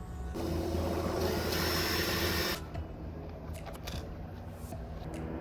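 Power drill running for about two seconds, then stopping.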